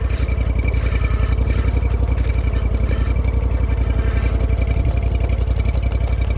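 An engine running steadily at idle: an even, rapid low pulsing with a faint high whine over it.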